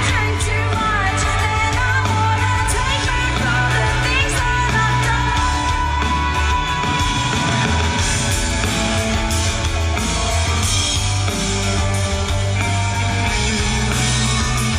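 Loud rock band playing live, with a singer over electric guitar, bass and drums.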